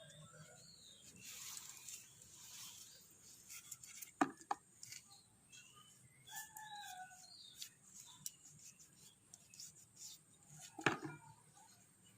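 Knife peeling aloe vera leaves: quiet scraping and cutting, with a few sharp knocks, two about four seconds in and a louder one near the end.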